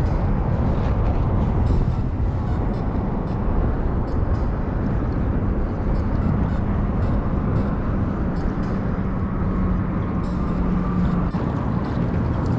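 Steady low rush of river current around a wading angler's legs, a continuous rumbling noise with no breaks.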